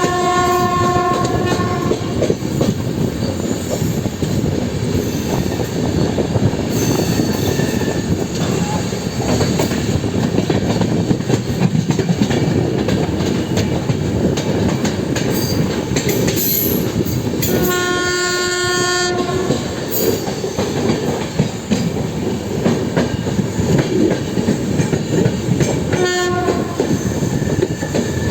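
Express train running at speed: the steady rumble and rattle of LHB coaches on the track. Over it, the WAP-7 electric locomotive's horn sounds three times: a blast that ends about a second in, a longer blast of about a second and a half around 18 seconds in, and a short toot near the end.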